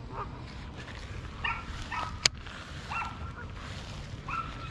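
Short animal calls repeating about once a second, with a single sharp click a little past the middle that is the loudest sound.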